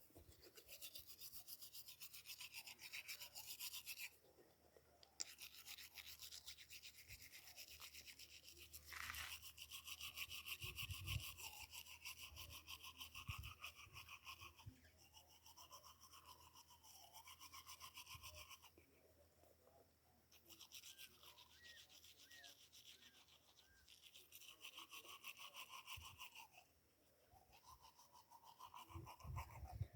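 Toothbrush scrubbing teeth in quick back-and-forth strokes, faint, with a few short pauses.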